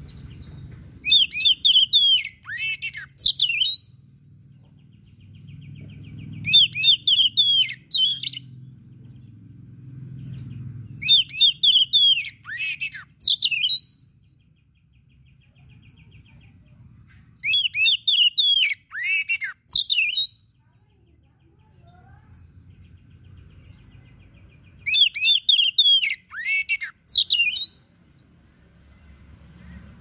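Male oriental magpie-robin singing: five bouts of quick, varied, sharply gliding whistled notes, each two to three seconds long, with pauses of a few seconds between them.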